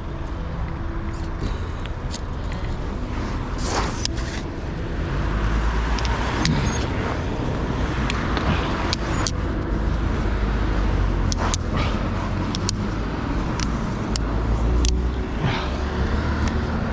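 Road traffic passing close by: a steady low rumble of car engines and tyres that swells about five seconds in, with scattered sharp clicks and knocks over it.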